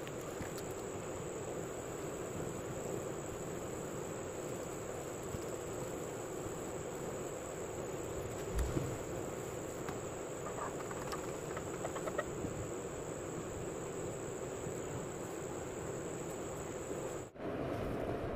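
Steady background hiss and hum with a thin, constant high-pitched whine, and a soft knock and a few light ticks from handling partway through. The sound drops out abruptly near the end.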